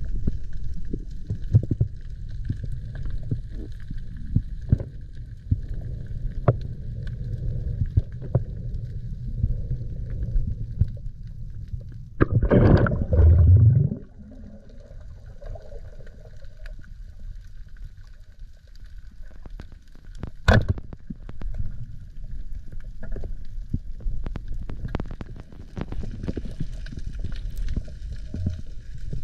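Muffled underwater sound picked up by a GoPro in its waterproof housing: a low rumble of moving water with scattered clicks. About twelve seconds in a louder rush lasts nearly two seconds, and a single sharp click comes about twenty seconds in.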